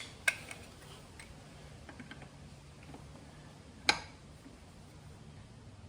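Sharp metal clicks of hand tools being handled as a hex socket is fitted to a torque wrench: two louder clicks, about a third of a second and about four seconds in, with a few lighter ticks between.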